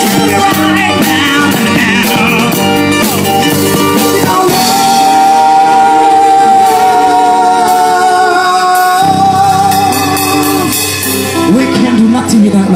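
Live busking band of acoustic guitar, electric bass and a male lead singer playing a rock song; the singer holds one long note in the middle, and the music thins out near the end.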